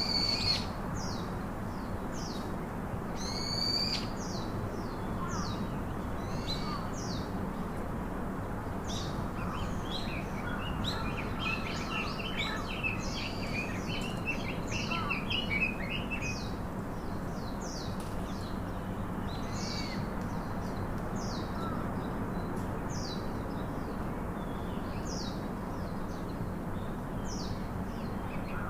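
Several birds calling and singing together: many short high chirps and whistles throughout, with a denser warbling stretch from about ten to sixteen seconds in, over a steady low background hum.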